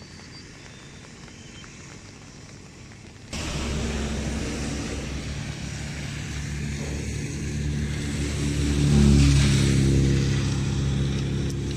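Quiet outdoor background, then from about three seconds in a motor vehicle's engine hums close by, growing louder to its loudest about nine seconds in as it passes on the road.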